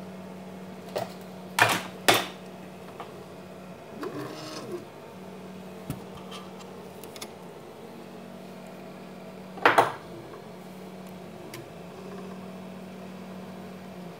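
Homemade 3D printer's stepper motors running with a steady hum that stops and restarts every few seconds as the head moves, over a fan. A few loud knocks break in, two close together near the start and one about two-thirds of the way through.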